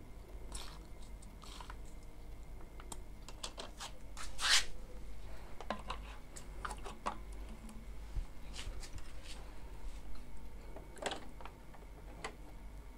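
Scattered light clicks and scrapes of plastic printer parts being handled: an Epson ink damper with a syringe fitted to it, knocking and rubbing against the tubes and carriage. The loudest is a longer scrape about four and a half seconds in.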